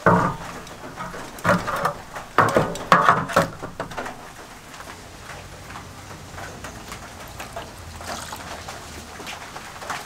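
Water splashing and sloshing in a shallow metal tray as a rusty machine vise is lowered into it: several splashes in the first few seconds, then quieter, steadier water sounds.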